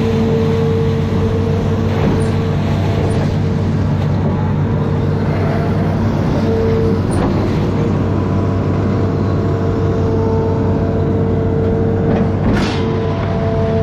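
Diesel engine of an amphibious excavator running steadily, with a constant whine over the low hum. A short hiss comes about twelve seconds in.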